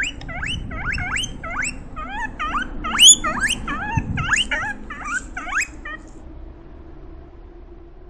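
Guinea pig wheeking: a rapid run of short, shrill whistles, each sweeping upward in pitch, about two a second, stopping about six seconds in. This is the guinea pig's begging call for food.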